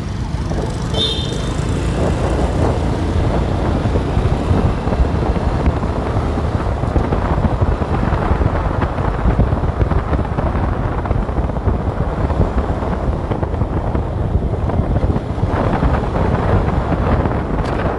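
Wind rushing over the microphone and road noise from a vehicle moving fast along a street, a steady loud rush. A brief high tone sounds about a second in.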